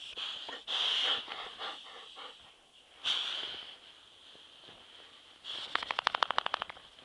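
Dogs sniffing and snuffling close to the microphone in short bursts. About a second before the end comes a fast run of sharp crackles, around ten a second.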